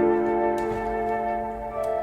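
Soft, slow background music of long held notes, with the chord changing right at the start.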